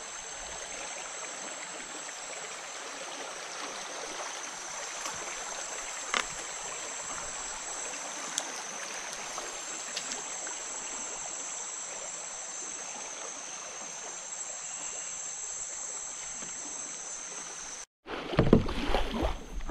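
Water rushing steadily past a moving kayak on a river, with a steady high-pitched drone above it and a few faint ticks. Near the end, after a brief dropout, loud splashing.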